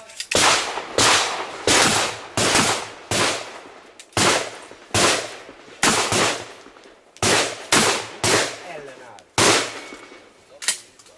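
A rapid string of about a dozen shotgun shots, roughly one every 0.7 s, each with a ringing tail. There is a short break partway through, and fainter clicks follow near the end.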